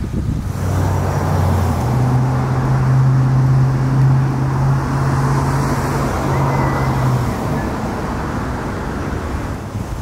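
A motor vehicle engine running with a steady hum that steps up in pitch about two seconds in and stops around seven seconds, over a broad rushing noise that swells in the middle and eases off.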